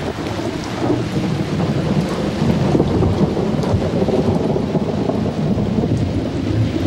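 Fireworks going off: a dense, continuous rumble of bursts with many small crackles over it.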